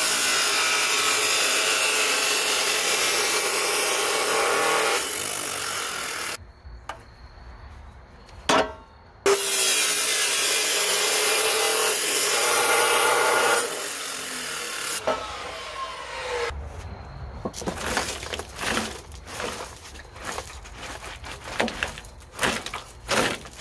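Power saw cutting into wood in two long, steady runs of about six and four seconds, followed by irregular knocks and scrapes of the boards being worked by hand.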